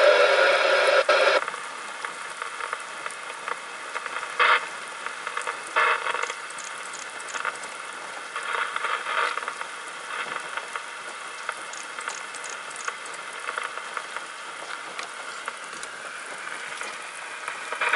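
Steady rain hiss with scattered pattering and crackle. For the first second and a half a loud radio-like sound plays over it, then cuts off suddenly.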